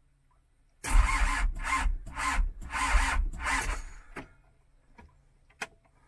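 Toyota Hiace's diesel engine being cranked by the starter in a slow pulsing rhythm, about five pulses over three seconds, then stopping without catching: the cold engine won't fire. A sharp click follows just after the cranking stops.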